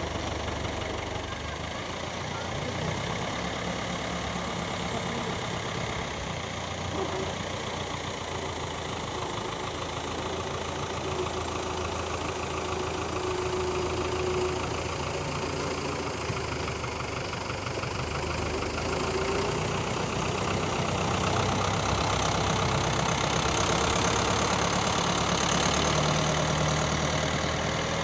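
A farm tractor's diesel engine runs steadily as the tractor works a levelling blade through loose soil. The engine gets louder from about two-thirds of the way through, with a faint whine in the middle.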